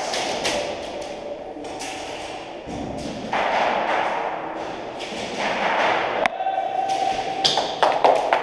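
Players moving through an indoor airsoft arena: sharp taps, knocks and thuds with shuffling and gear rustle close to the head-mounted microphone. A short steady tone sounds for about a second about two-thirds of the way through.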